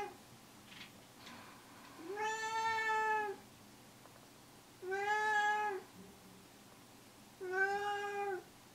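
Domestic cat meowing three times, each a long meow of about a second held at a level pitch, roughly two and a half seconds apart: calling for its owner to follow it to its food.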